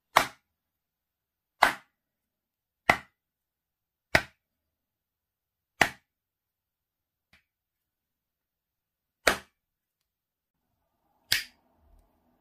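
Seven sharp finger snaps, irregularly spaced one to three and a half seconds apart, with a much fainter click in the long gap between the fifth and sixth.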